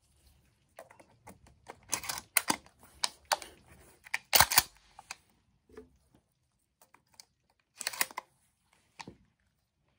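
Remington 870 12-gauge pump shotgun being loaded: a string of metallic clicks and clacks as shells are thumbed through the loading port into the magazine tube, the loudest about four and a half seconds in and another cluster near eight seconds.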